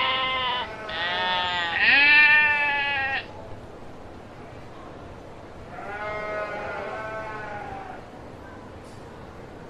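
Sheep bleating: several wavering bleats in quick succession over the first three seconds, the loudest about two seconds in, then one fainter bleat from about six to eight seconds.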